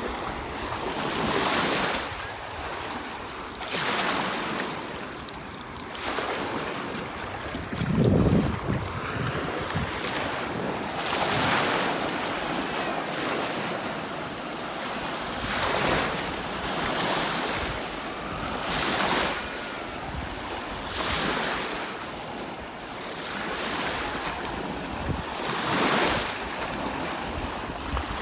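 Lake Huron waves breaking and washing onto a sandy beach, the surf swelling and falling every two to three seconds, with a heavier low crash about eight seconds in. Wind gusts across the microphone.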